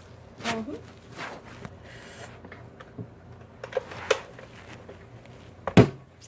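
Scattered small clicks and taps of handling, with a short voice sound about half a second in and a louder knock near the end.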